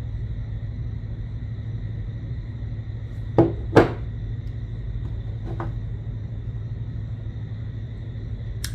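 Steady low hum with a few sharp clicks of pliers on clasp wire: two close together about three and a half seconds in, a fainter one about two seconds later and one near the end.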